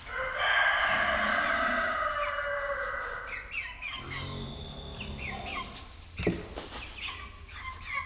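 A rooster crows once, a long call of about three seconds that slowly falls in pitch, followed by the flock of chickens clucking with short, repeated calls. A single sharp knock comes about six seconds in.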